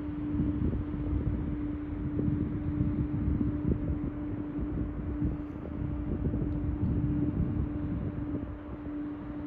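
Steady hum of the passing Great Lakes self-unloading bulk carrier Algoma Sault, one constant tone from the ship's machinery, over low rumbling wind noise on the microphone.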